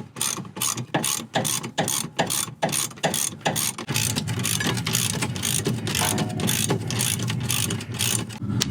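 Ratchet-type tool clicking in repeated strokes while the rear brake caliper hanger bolts are undone. The clicks come two or three a second at first, then faster and steadier from about halfway.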